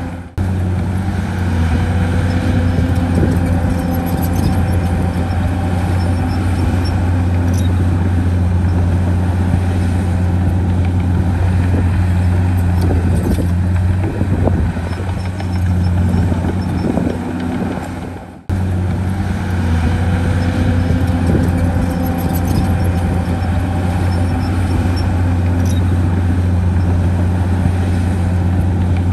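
Heavy diesel engine of an earthmoving machine running steadily under load, a deep even drone, with a few knocks about halfway through. The sound breaks off for a moment twice, just after the start and about two-thirds of the way in.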